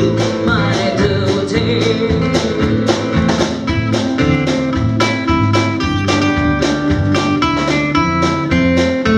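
Live band playing an up-tempo folk-rock song led by guitar, with a steady beat.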